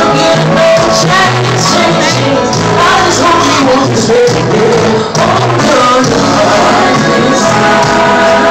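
Live R&B band music with a woman singing over it, loud and steady.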